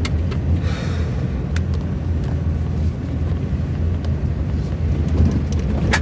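A vehicle's engine running steadily under way, a continuous low rumble, with a few faint clicks.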